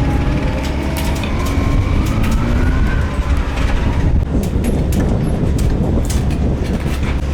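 Rally car engine accelerating, its pitch rising from about one to three seconds in, then a rougher, noisier rush with sharp crackles as the car goes by.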